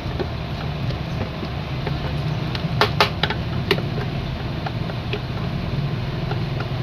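A steady low hum from a running motor, with three sharp clicks a little past the middle.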